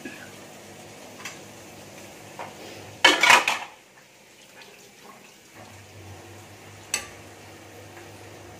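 Kitchen pots, pans and utensils clattering: a few light clinks, then a loud rattling clatter about three seconds in, and one sharp clink near the end.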